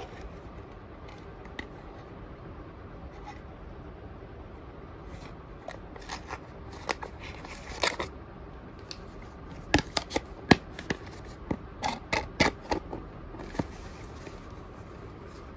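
A metal powder tin being handled: its aluminium foil seal crinkles as it is pressed back down, and its plastic lid clicks as it is fitted onto the rim. After a few quiet seconds comes a run of sharp crackles and clicks, thickest a little past halfway.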